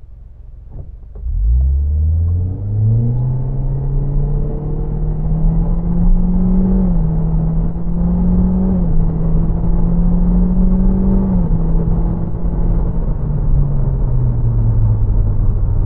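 Nissan Juke Nismo's turbocharged 1.6 DIG-T four-cylinder under full-throttle acceleration from a standstill with the X-Tronic CVT in Drive. The revs climb quickly about a second in, then hold almost level with a few small dips while the car gathers speed, and ease down near the end.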